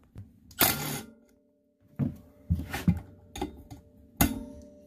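Cordless Milwaukee Fuel impact driver running in several short bursts, rattling as it backs out the bolts of a snowmobile primary clutch cover. The first burst is the longest.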